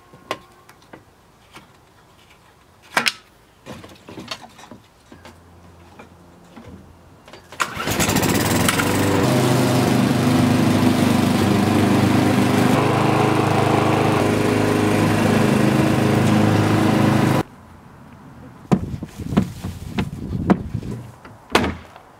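Walk-behind rotary lawn mower's small petrol engine running steadily for about ten seconds, coming in abruptly and cutting off suddenly. Before it come a few sharp clicks and taps, and after it a few knocks.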